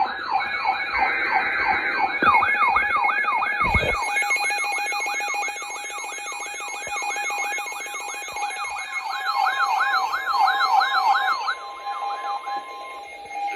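Several electronic sirens yelping together, with quick rising-and-falling sweeps about three a second over a steady tone. The sweeps die out about twelve seconds in.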